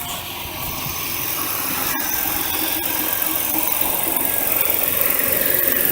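Buick LeSabre V6 idling steadily just after a hot start, with the light ticking of its fuel injectors. It grows louder over the first couple of seconds, and there is one sharp click about two seconds in.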